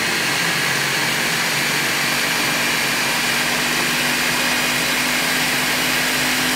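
Countertop blender motor running steadily at speed, blending chunks of fruit with orange juice into a smoothie: a loud, even motor noise with a steady hum under the churning of the contents.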